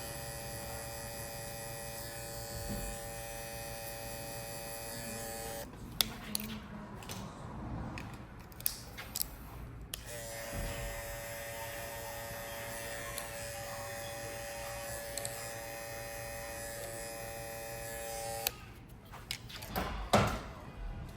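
Babyliss Pro cordless electric hair clipper running with a steady buzz, switched off about six seconds in and back on about four seconds later, then off again near the end. Handling clicks and knocks fill the gaps, the loudest just before the end.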